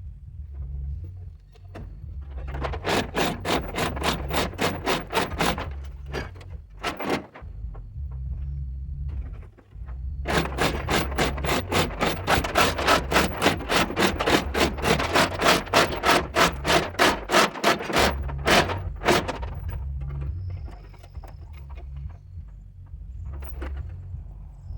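A hoist's ratchet clicking rapidly and evenly, about four clicks a second, in two long runs, as a truck cab is lifted off its frame. A steady low rumble runs underneath.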